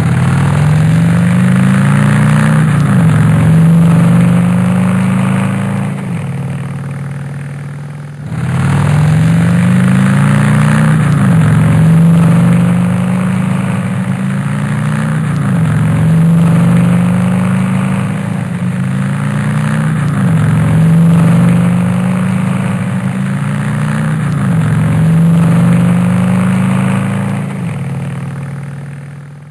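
Car engine accelerating hard through the gears: the engine note climbs in pitch, then drops sharply at each upshift and climbs again. The run fades and restarts about a third of the way in, then fades out at the end.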